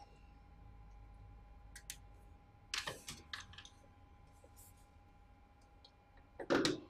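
Small clicks and knocks of a phone's aux cable and plug being handled and pushed into the audio jack on a kids' ride-on car's dashboard, with one louder knock near the end. Under them is a faint steady electrical hum.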